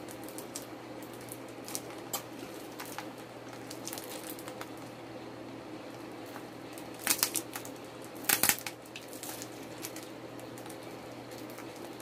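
Clear plastic wrapping crinkling and crackling as it is peeled off a small perfume bottle, with scattered small crackles and two louder rips about seven seconds in and again a second later, over a low steady hum.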